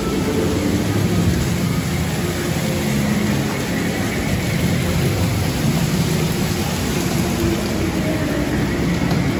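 Steady loud rumble with a rushing, rain-like noise, heard from on board an amusement-park water ride as it runs along its course.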